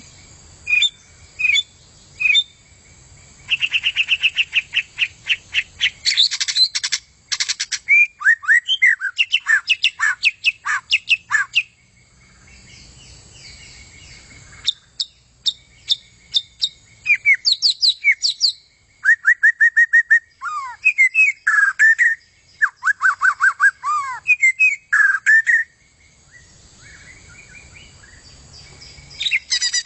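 White-rumped shama (murai hutan) singing a varied, loud song: rapid trills, repeated sharp notes and sweeping whistled phrases, delivered in bursts with short pauses between them.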